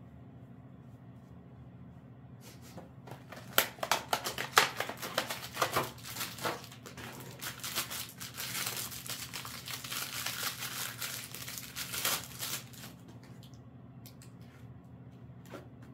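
Wrapping crinkling and tearing as bandage supplies are handled by hand: a dense run of crackles that builds into steady crinkling, then stops a few seconds before the end, leaving only a few faint clicks.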